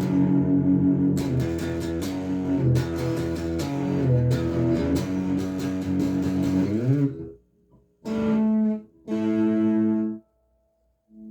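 Electric guitar played through a Behringer Super Fuzz pedal in an improvised solo: sustained, bent notes, ending in a rising bend. The playing then breaks off, and two long held notes follow before it falls quiet.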